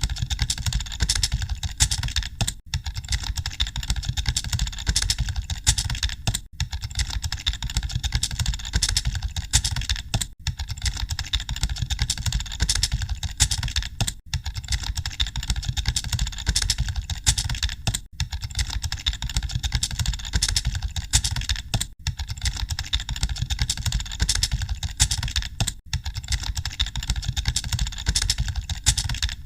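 Computer keyboards being typed on fast, a dense and continuous clatter of keystrokes over a steady low rumble. The sound drops out briefly about every four seconds.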